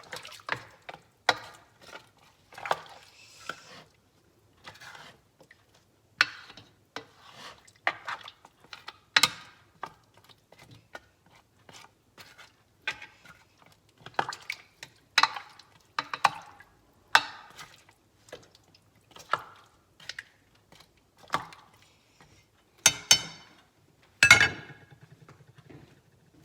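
A utensil stirring beef short ribs in a pot of soy sauce and broth, clinking and knocking against the pot at irregular intervals of about a second, with a louder clatter near the end.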